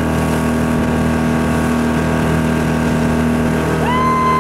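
Towing motorboat's engine running steadily at speed, with the hiss of water spray. Near the end a person lets out a long, held high shout.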